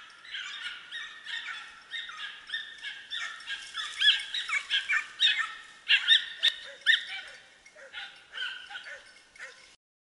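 A pack of hunting dogs baying at a wild boar they are holding at bay, in quick, overlapping high yelps and barks. There is a single sharp click a little past halfway, and the barking cuts off suddenly near the end.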